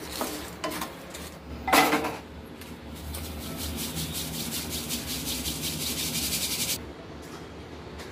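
A spatula scraping roasted chana dal through hot salt in a pan, with a loud sharp scrape or clatter about two seconds in. Then the dal is shaken in a mesh sieve: a fast, steady rasping rattle for about four seconds as the salt sifts out, stopping abruptly.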